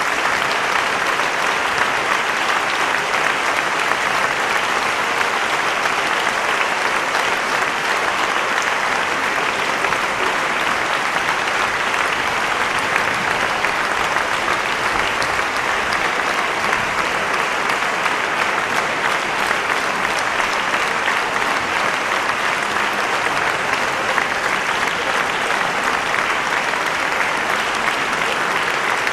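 A large concert-hall audience applauding, a dense, even clapping that holds steady throughout.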